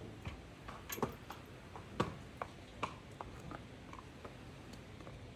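Horse's hooves striking brick paving as it is led out at a walk: a string of light, uneven clops, two or three a second.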